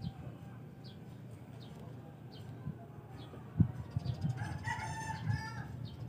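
A rooster crowing once, a call of about a second and a half starting about four seconds in. Low knocks from handling the rod run underneath, with a sharp thump just before the crow.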